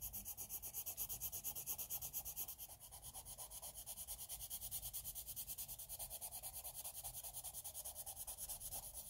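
Blender pencil rubbed on paper in rapid, even back-and-forth strokes, faint and rhythmic, burnishing layers of coloured pencil together.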